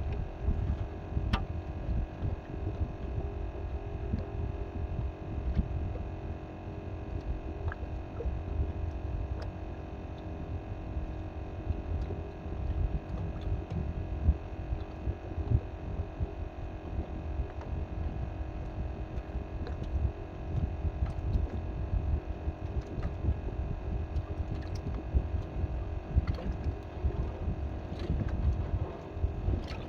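A steady hum of several held tones over a low, uneven rumble of wind on the microphone, with a few faint clicks.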